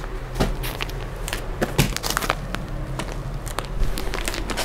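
Clear plastic packaging of packed ladies' suits crinkling and crackling as the packets are handled, a run of irregular crackles.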